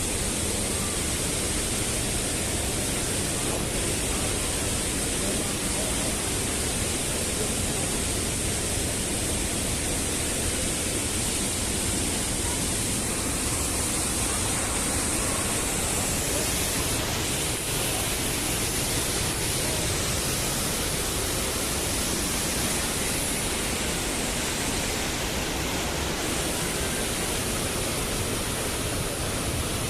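Steady rushing of white water from a mountain stream cascading through a rocky gorge, a constant dense hiss with no breaks.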